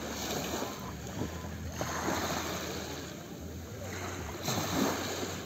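Calm sea washing gently at the shoreline, a steady hiss of water with wind rumbling on the microphone, swelling about two seconds in and again near the end.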